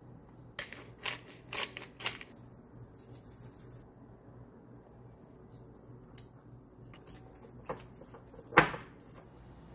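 Kitchen handling sounds at a ceramic bowl: a few short gritty grinds about half a second apart, like a pepper mill seasoning the cheese, then near quiet, then a wooden spatula knocking against the bowl twice near the end, the second knock the loudest.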